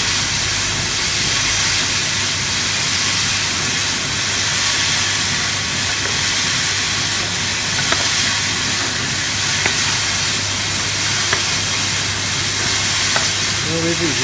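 Steady hiss and low hum of a continuous inkjet printer at work, with a light tick about every second and a half to two seconds in the second half.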